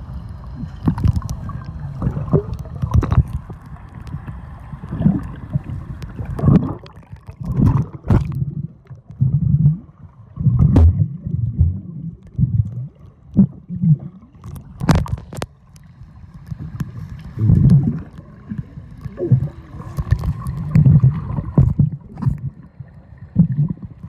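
Pool water moving around a camera held underwater, heard muffled and low, with irregular surges and thuds and a few sharp clicks.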